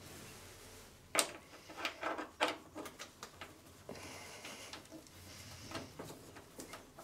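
Welding cable plugs being pushed and twisted into the welder's front-panel sockets to hook up the stick-welding leads. Plastic-and-metal clicks and knocks, a sharp one about a second in and a quick cluster a moment later, then scattered lighter clicks.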